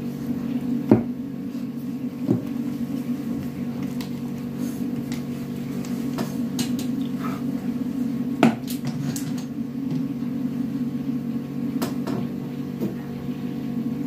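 Scattered clicks and knocks of a plastic mayonnaise jar being handled, the loudest a little past the middle, over a steady low hum.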